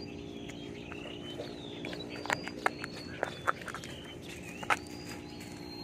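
Birds chirping, short gliding calls over a steady low hum, with a handful of sharp clicks and taps near the middle.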